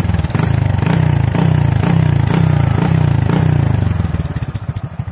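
Honda EX5's single-cylinder four-stroke engine running through an aftermarket KSR exhaust silencer. It is revved for about four seconds in quick rising-and-falling pulses, then drops back to idle.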